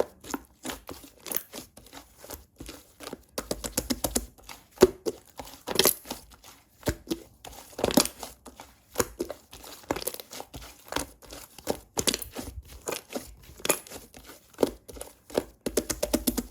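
Slime being squished and stretched by hand, making irregular crackling and popping clicks, several a second.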